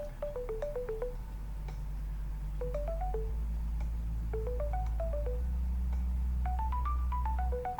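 Background music: short, bell-like mallet notes running up and down in quick steps over a held bass note that shifts to a new pitch every couple of seconds.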